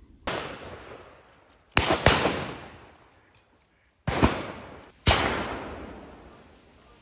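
Shotgun fire on a duck drive: five shots, including a quick pair about two seconds in, each trailing off in a long echo.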